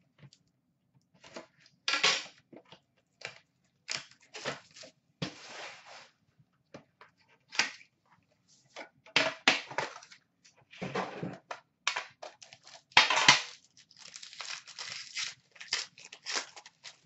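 Plastic wrapping being torn off and crumpled as a sealed box of hockey cards is unwrapped and opened by hand: an irregular run of short crackles and rustles.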